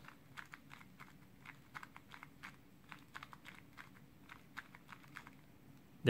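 2x2 speed cube (YJ MGC 2x2) being turned quickly by hand, its plastic layers giving faint, quick clicks several times a second as the four-move algorithm is repeated.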